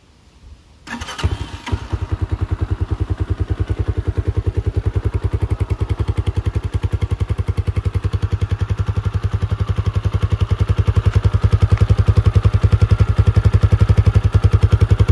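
Minsk C4 250 motorcycle's 250 cc four-stroke engine is started with the electric starter about a second in and catches at once. It then idles with an even beat from the exhaust, a little louder near the end.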